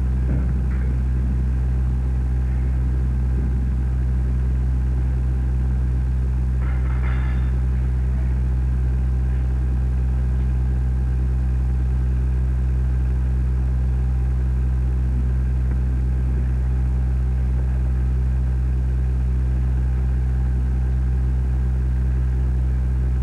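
A steady low hum at one unchanging pitch, with a faint brief sound about seven seconds in.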